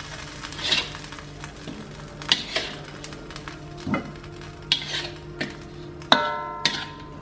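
Metal spatula and tongs scraping and clinking against a metal wok as chicken pieces are turned and basted in spicy sauce, over light sizzling. About six seconds in, a sharp metal clink rings on for about a second. A steady low hum runs underneath.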